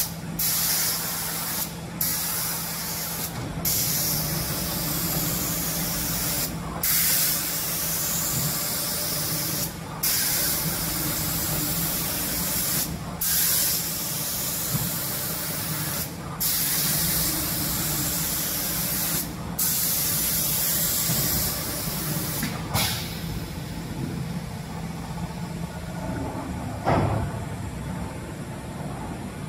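Automatic door-painting machine's air spray gun hissing, switching off for a moment at regular intervals of about one and a half to three seconds between passes, over a steady low machine hum. The spraying stops about 23 seconds in, leaving the hum, and a single knock sounds near the end.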